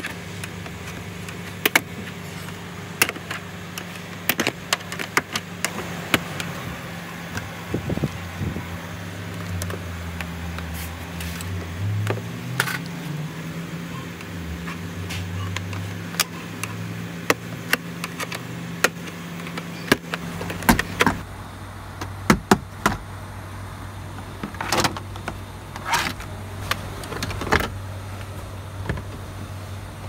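Plastic door-sill trim being pried off with a screwdriver: a string of sharp clicks and snaps as the clips let go and the tool knocks against the panel, over a steady low hum that changes about two-thirds of the way through.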